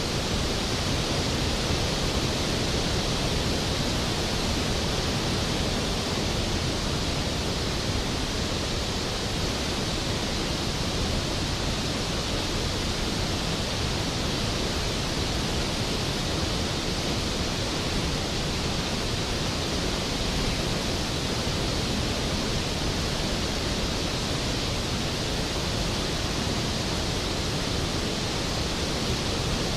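Skógafoss waterfall: a large volume of water falling into its plunge pool, a steady, dense rushing roar with no change in level.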